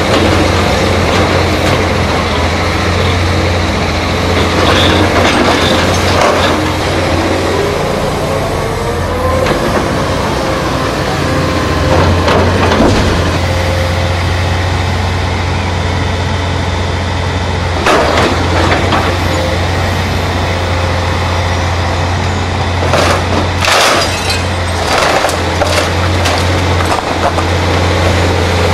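Komatsu PC490LC excavator's diesel engine running steadily with a low hum, while its demolition grapple crunches and clatters against boards and brickwork as it grips and pulls debris out of a wall. A cluster of sharp knocks comes near the end.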